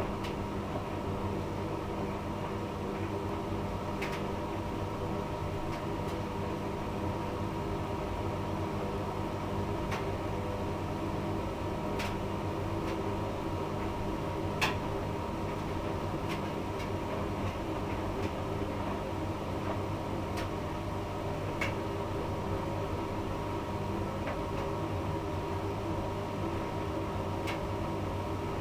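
Hotpoint front-loading washing machine with its drum turning steadily at low speed as the spin phase begins: a steady motor hum, with a few light clicks from the load every several seconds.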